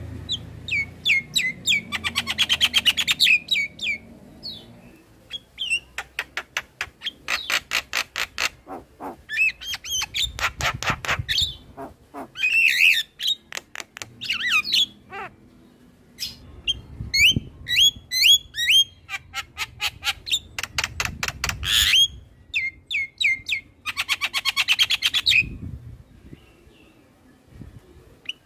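Javan myna singing: loud phrases of rapid clicking rattles mixed with sharp rising whistled chirps, each lasting a second or two, with short pauses between.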